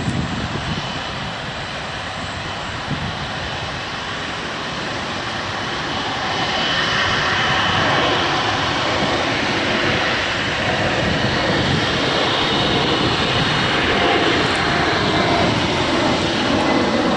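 Air France Airbus A380-861's four Engine Alliance GP7200 turbofans running at taxi thrust: a steady jet rush and whine that grows louder about six seconds in as the aircraft passes close.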